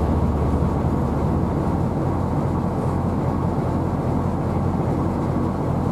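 Steady low rumble with a constant hum underneath, the engine and wind-and-sea noise of a ship underway.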